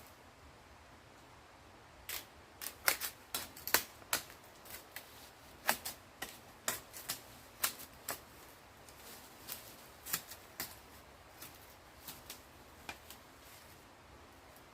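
A run of irregular, sharp clicks and snaps, several a second at first and thinning out toward the end.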